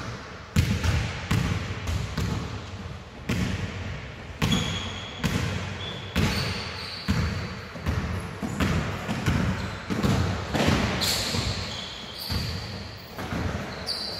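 Basketballs bouncing on a sports-hall floor, irregular thuds about one or two a second, each echoing in the hall. Short high squeaks join in from about four seconds in.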